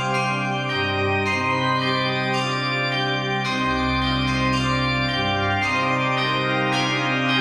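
Church bells pealing over sustained organ-like chords, with the bass notes changing every second or two.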